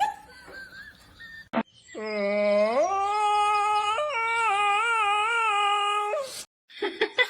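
A dog howling: one long howl of about four seconds that starts low, swoops up in pitch, then holds with a wavering pitch before stopping abruptly.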